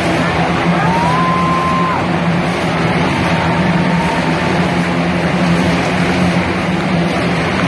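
Several motorcycle engines running hard and steady as the bikes circle inside a steel-mesh globe of death, a loud continuous drone. A brief high whistle-like tone rises over it about a second in.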